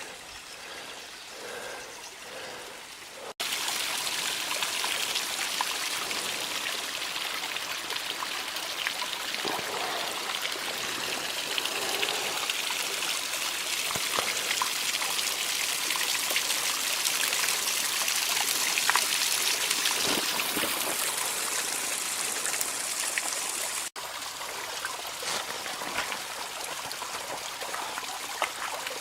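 Small spring-fed waterfall splashing and trickling as a steady rush of water. It jumps louder a few seconds in and drops back suddenly near the end.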